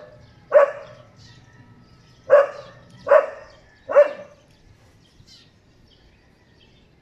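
A dog barking: four short, sharp barks, one about half a second in and then three in a row about a second apart between two and four seconds in. The barks come from a dog other than the one eating, whose noise startles the feeding dog.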